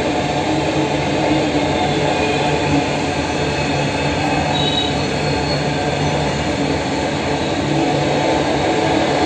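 Goods train of brake vans and wagons rolling past: a steady rumble of steel wheels on rail, with a thin high wheel squeal now and then.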